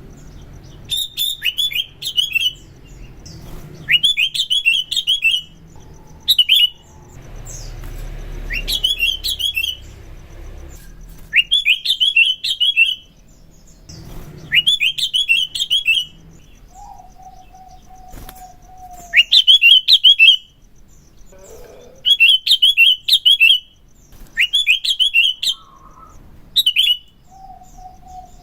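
Sooty-headed bulbul (kutilang) singing: short, loud chattering phrases, each about a second long, repeated every two to three seconds.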